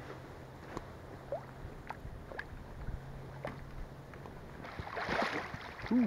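Light scattered clicks of a spinning reel and metal spoon lure being handled over a faint steady background hum; near the end a louder rustle of clothing as the camera is moved, then a brief low vocal hum.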